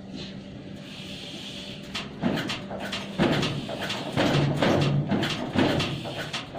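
Flat wooden craft sticks knocking and scraping against each other and the wooden table as they are stacked and pressed together, in a run of short sharp knocks from about two seconds in.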